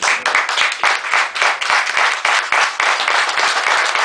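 Audience applauding, with separate hand claps standing out.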